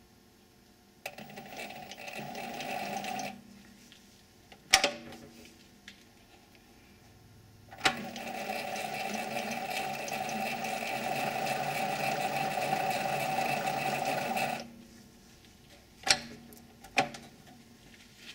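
7x16 mini lathe running under power with the half nut engaged, the spindle and leadscrew driving the carriage for a single-point thread-cutting pass. It runs briefly about a second in, then steadily for about seven seconds, with sharp clicks between and after the runs.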